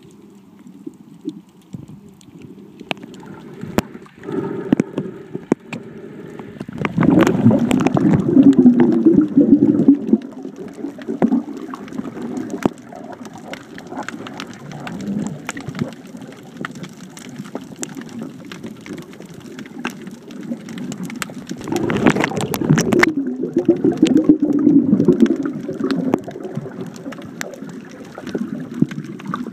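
Underwater sound picked up by a phone sealed in a waterproof housing: dull, low sloshing and gurgling of water, with two louder stretches of bubbling, one about seven seconds in and one about twenty-two seconds in.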